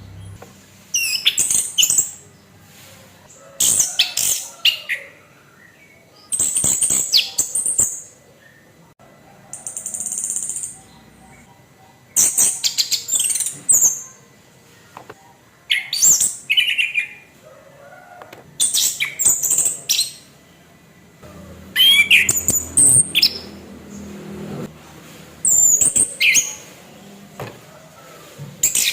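Orange-headed thrush singing its harsh, rapid 'kasaran' song: about nine loud, chattering phrases of a second or so each, repeated every few seconds with short pauses between.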